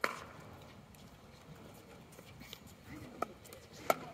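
A plastic pickleball tapping and bouncing on the hard court: one sharp tap at the start and two more near the end, about two thirds of a second apart.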